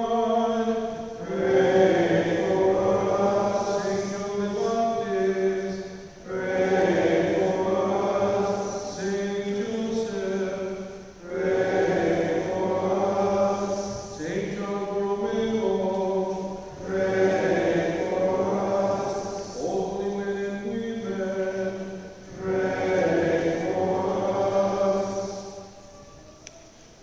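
Liturgical chant sung in phrases of about five seconds with short breaks between them, over a held low note. The singing fades out near the end.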